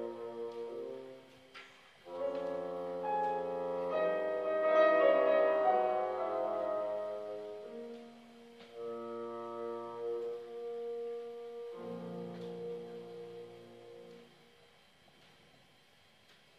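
Bassoon and grand piano playing classical chamber music: held bassoon notes over piano chords, with a short break about a second in. The music dies away and stops about fourteen seconds in.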